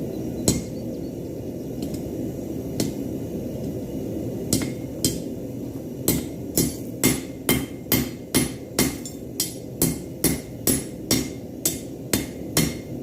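A 5 lb hammer striking metal on an anvil: a few scattered blows, then from about six seconds in a steady run of about two strikes a second. A steady low rumble runs underneath.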